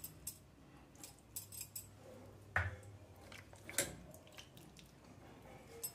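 Soaked tamarind being squeezed and mashed by hand in a steel bowl of liquid to free the seeds: faint wet squelching with a few short clicks and taps, the loudest about two and a half and four seconds in.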